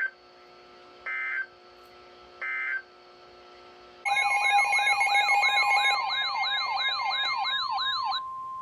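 Emergency Alert System broadcast: three short bursts of warbling data tones, the end-of-message code closing the warning, then a loud siren-like alert with rapid rising sweeps about three a second. About 8 seconds in, it gives way to a single steady alert tone.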